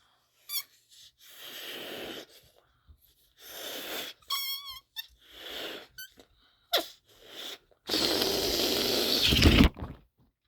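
A person blowing into a balloon in repeated puffs of breath, with short squeaks from the rubber. Near the end comes a much louder rush of air lasting about two seconds that cuts off suddenly.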